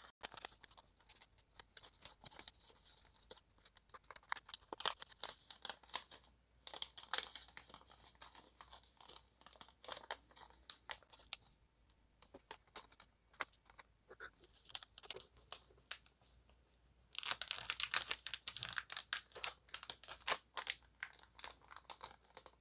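Thin plastic bags being handled and folded by hand, rustling in irregular bursts with short pauses, the longest and loudest stretch near the end.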